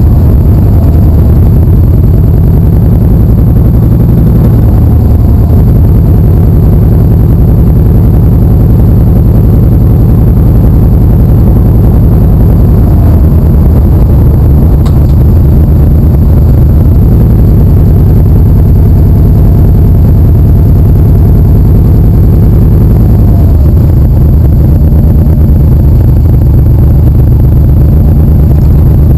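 Motorcycle engine running under way, heard loud from a camera mounted on the bike, its note shifting a couple of times as the speed changes.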